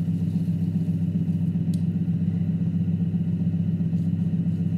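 Electric potter's wheel motor running at a steady speed, a low, even hum.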